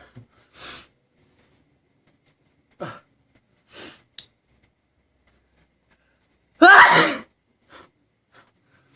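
A man sneezing once, loudly, about two-thirds of the way in, with a falling voiced pitch as it breaks. A few short, much quieter breathy sounds come before it, all part of a sneezing fit.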